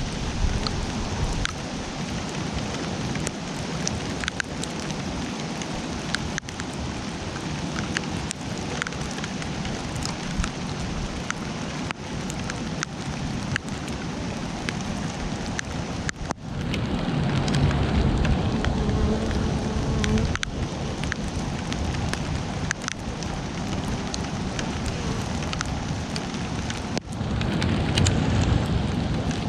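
Steady rain falling, with scattered sharp drip ticks. A low rumble swells about 17 seconds in and again near the end.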